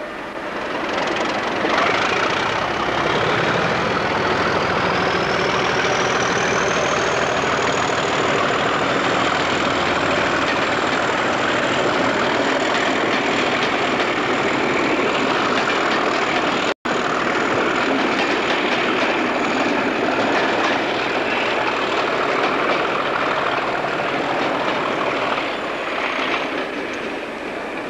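English Electric Class 37 diesel locomotive, with a V12 engine, pulling away hard under power. Over it a high whistle rises in pitch for the first several seconds and then holds steady, typical of the loco's turbocharger spooling up. The sound cuts out for an instant partway through, and eases slightly near the end as the train draws away.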